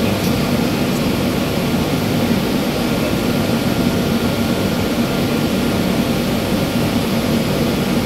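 Heavy drilling rig engine running steadily: a loud, even drone with no changes.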